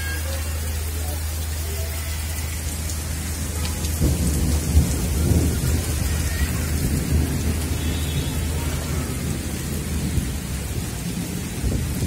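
Heavy monsoon rain falling steadily. A deep low rumble runs under it and swells louder about four seconds in before easing back.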